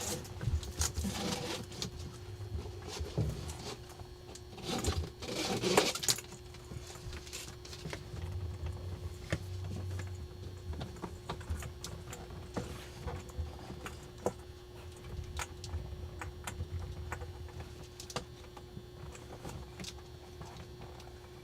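Hands fishing wire leads through a truck's dash panel: rustling and scraping, louder about a second in and again around five to six seconds in, with scattered light clicks over a faint steady hum.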